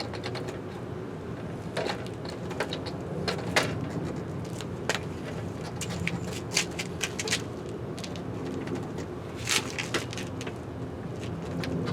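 Scattered clicks and knocks of hands and tools working on a bike, the loudest about three and a half seconds and about nine and a half seconds in, over a steady low hum.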